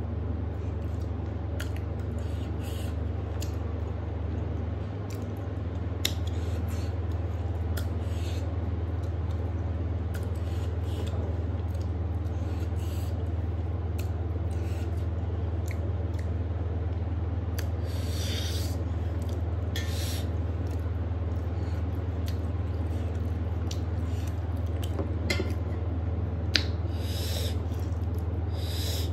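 Close-up mouth noises of someone eating fish curry and rice by hand: short wet chewing and lip-smacking sounds every second or two, with a couple of small sharp clicks. A steady low hum runs underneath throughout.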